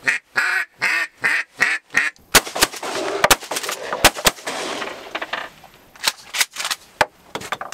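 A hand-blown duck call sounding a quick run of about seven quacks, followed by a string of shotgun shots, several fired close together, over the next five seconds.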